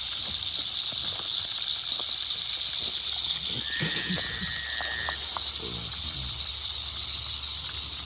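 Steady high buzzing of an insect chorus, with a short, flat, high tone lasting about a second and a half about halfway through.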